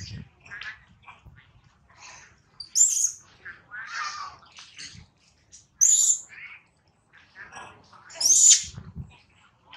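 Baby long-tailed macaque crying in short, high-pitched screams, the three loudest about three, six and eight and a half seconds in, with quieter, lower squeals between them.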